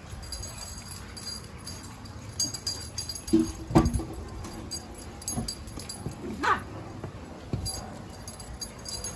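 Dogs playing roughly, a German Shepherd pestering a small dog, with short whimpers and yelps. The loudest comes about four seconds in, and a whine rises and falls a couple of seconds later.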